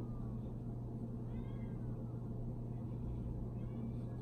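A Siamese-type cat meowing twice, faint through the window glass, about a second in and again near the end: it is begging for food. A steady low hum runs underneath.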